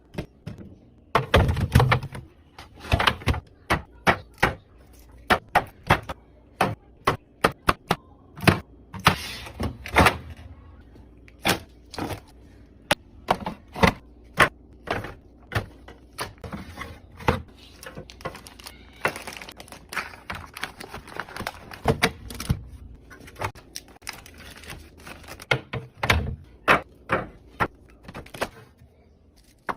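Irregular clicks, knocks and thunks of containers, jars and bottles being set down, slid into place and opened and closed while a refrigerator is stocked and organized, with occasional louder clunks.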